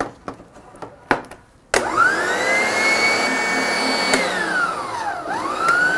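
A few clicks as the bowl is fitted to an electric stand mixer, then the mixer's motor starts suddenly and whines up to speed, whisking egg whites to stiff peaks. About four seconds in its pitch sinks as it slows, then climbs again near the end.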